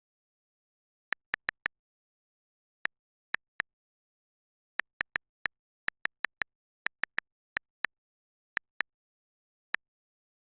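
Phone on-screen keyboard key-press clicks: short, identical ticks in uneven runs, like typing, with dead silence between them.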